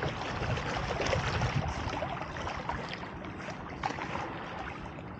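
Water sloshing and splashing around a kayak, a steady rush with a few faint knocks.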